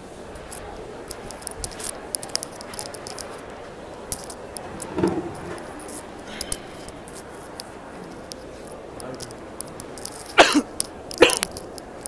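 A man coughing twice, about a second apart, near the end, over a steady background hum with scattered light clicks and clatter.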